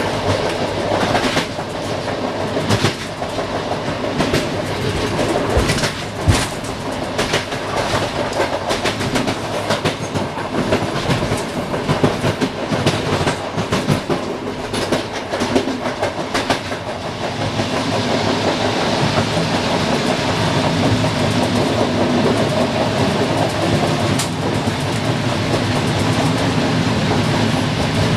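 Train wheels running over the track, heard from inside the train: a dense clatter of sharp clicks as the wheels cross rail joints and switches for roughly the first half, then a smoother, steady rumble.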